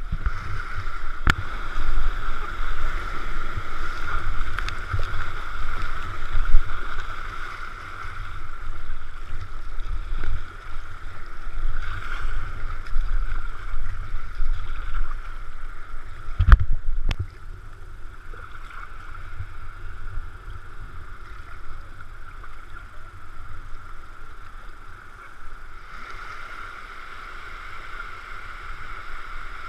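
Water sloshing and gurgling against a sea kayak under way, with wind gusting on the microphone; the gusts ease off about halfway through, leaving a steadier wash of water. Two sharp knocks, one early and one about halfway through.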